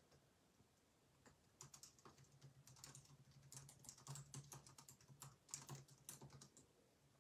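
Faint, quick, irregular clicking and tapping, beginning about a second in and stopping shortly before the end, with a low steady hum underneath while it lasts.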